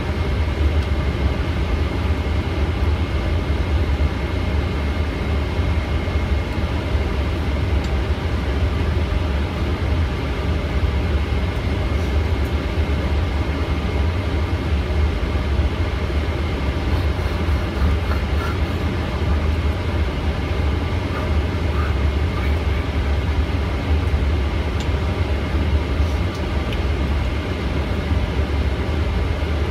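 Steady interior noise of a Boeing 777 taxiing: a strong low rumble with a thin, steady high-pitched whine over it, unchanging throughout.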